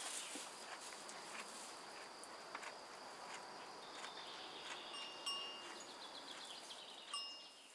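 Outdoor ambience of insects chirring steadily at a high pitch, with a few short high ringing or chirping notes and scattered light clicks, fading out at the end.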